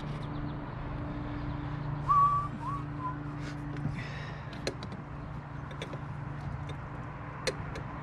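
Light clicks and handling noises as hands work at an oil catch can and its hoses in a pickup's engine bay, over a steady low hum. About two seconds in, a short whistle-like chirp rises and falls, the loudest sound here.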